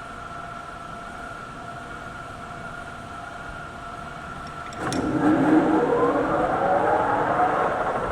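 Metal lathe running with a steady whine. About five seconds in there is a click, and it turns much louder and rougher, with rising squealing tones.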